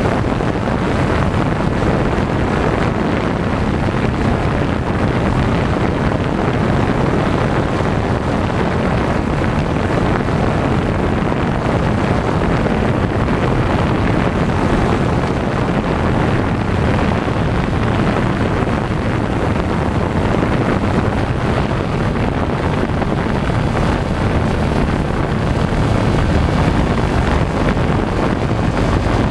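Small multirotor camera drone's motors and propellers running steadily and loudly, with wind noise on its microphone from the propeller wash.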